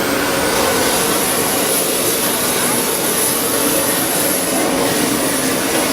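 Jet turbine engine running steadily: a loud rush with a high-pitched whine over it. The whine rises slightly right at the start, then holds.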